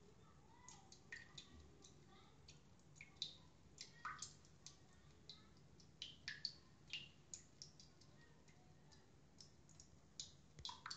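Near silence with faint, irregular small clicks and drip-like plinks, coming in scattered clusters, over a faint steady low hum.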